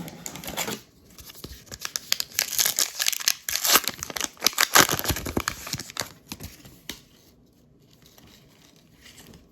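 A trading-card pack wrapper being torn open and crinkled, a dense crackling that is loudest in the middle and dies away over the last couple of seconds.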